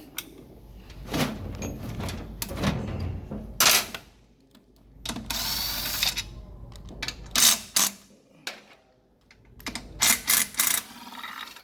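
Hand and socket tools working the bell-housing bolts on a 1998 Ford Contour transaxle case: irregular metal clicks and knocks, with a rattling tool burst about five seconds in and a shorter one near the middle.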